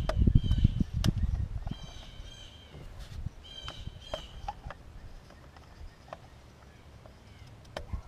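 Sharp plastic clicks and knocks of an oil filler cap being worked onto a replacement fill tube on a 2002 Chevrolet Suburban's engine, the cap not seating properly. A bird calls in short runs of quick notes three times, and a low rumble fills the first second or so.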